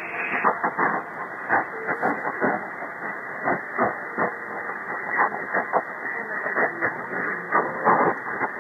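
Shortwave receiver audio on 6130 kHz in upper sideband: a weak Lao National Radio signal buried in hiss and irregular static crackle. About half a second in, the receiver's audio filter narrows from 2.6 kHz to 1.8 kHz, and the hiss turns duller.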